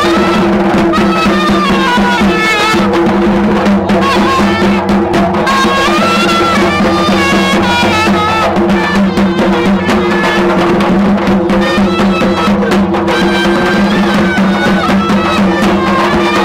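Traditional folk music: a wind instrument plays a wavering melody over a steady drone, with drumming underneath.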